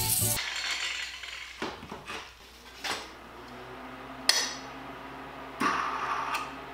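Angle grinding cuts off abruptly at the start, followed by clinks and knocks of metal tools and workpiece being handled at a steel bench vise, with a sharp knock about four seconds in. A low steady hum comes in about halfway through.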